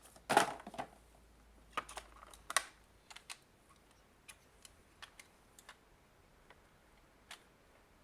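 Light clicks and knocks of hard parts of a phone repair fixture being handled during unboxing: a louder cluster in the first second and another around two to two and a half seconds in, then sparse single clicks.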